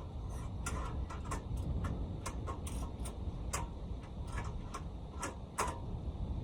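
A string of irregular light clicks and clacks, a few a second, over a steady low rumble.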